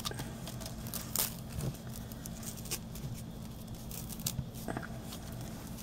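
Hands knotting a length of fabric ribbon: faint scattered rustles and a few small ticks, over a steady low hum.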